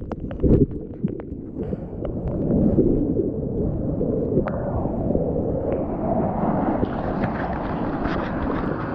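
Foamy whitewater rushing and splashing around a surfboard, picked up by an action camera mounted on the board's nose, with a thump about half a second in. The rushing grows steadier and brighter in the second half.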